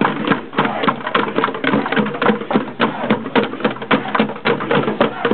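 Several hand drums beaten together in a fast, busy rhythm, many strikes a second.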